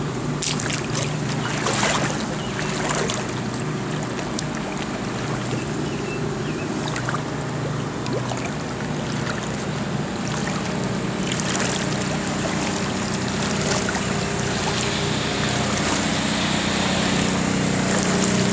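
A pump's motor runs steadily with a low hum, likely pumping out floodwater through the discharge hose. Water sloshes and splashes now and then around wading boots.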